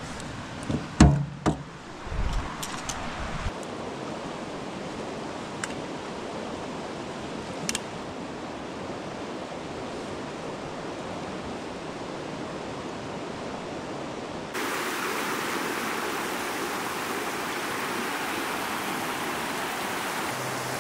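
Shallow river rushing over rocks, a steady rushing noise that turns louder and brighter about two-thirds of the way in. Near the start, a few loud knocks and clunks of things being moved around in a metal storage locker.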